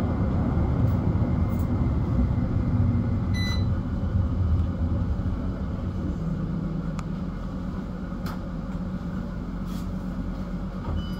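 CAF Urbos tram heard from inside, running along the track with a steady low rumble of wheels and drive that eases off as it slows for a stop. A short beep sounds about three seconds in.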